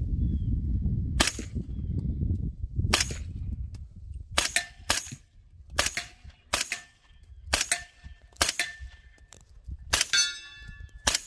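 Suppressed AR-15 in 300 Blackout with a Griffin Recce 7 suppressor firing subsonic rounds: about ten shots at an uneven pace, roughly one a second, each a sharp report with a short ring. Near the end one shot is followed by about a second of metallic ringing.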